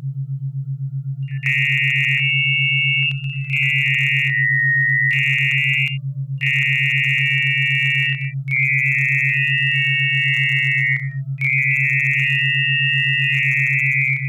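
Synthesized electronic test audio: a low tone pulsing several times a second under a high warbling tone near 2 kHz that comes in about a second and a half in and plays in five bursts with brief gaps. The high tones are the word "FUEGO" drawn into the sound's spectrogram, a hidden word for the listener to perceive.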